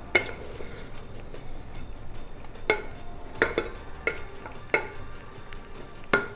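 Wooden ladle stirring and mashing boiled tapioca in a metal pot, knocking sharply against the pot's side about six times at uneven intervals, over a faint steady hiss.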